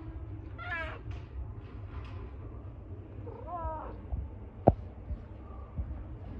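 Injured tabby cat with a broken jaw giving two short, wavering meows about three seconds apart. A single sharp click, the loudest sound, comes about four and a half seconds in, over a low handling rumble.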